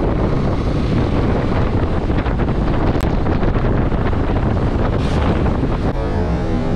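Steady rush of wind on the microphone of a moving Yamaha Tracer 7 motorcycle, loud enough to cover the engine.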